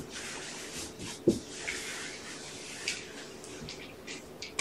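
Kittens and their mother moving and playing on a carpeted floor: soft rustling and scratching, with a dull thump about a second in, over a faint steady hum.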